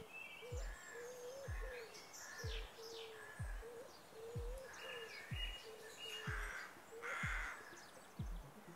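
Birds chirping over a steady, wavering low tone, with a deep thump that drops in pitch about once a second, like a slow pulsing beat.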